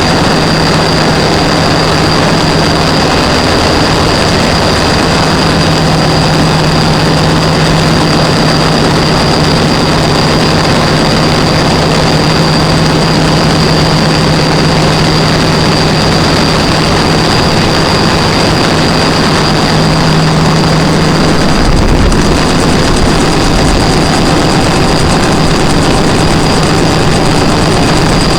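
Gas-engine generator running steadily, a loud continuous engine drone with a constant low hum.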